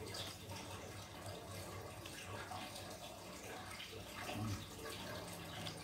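Quiet eating: a spoonful of broth-soaked tofu lifted from a plastic cup and bitten, with a short low mouth sound about four and a half seconds in, over a steady hiss of background noise.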